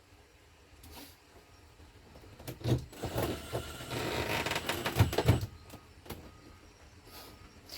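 Dash trim panels being handled and fitted back in: scattered clicks and knocks, with a dense rattling, clicking run of about three seconds in the middle, its loudest knocks near its start and end.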